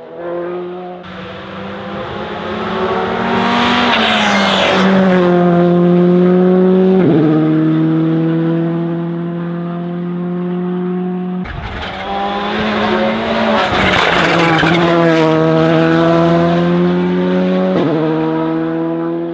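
Rally cars at full throttle on a stage, each engine note climbing and dropping sharply at every gear change as the car passes close by.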